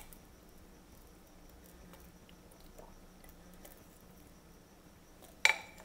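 Faint light clicks of a silicone whisk working sauce over meat in a cooking pan. Near the end comes a sharp knock with a brief ring, then a smaller second one.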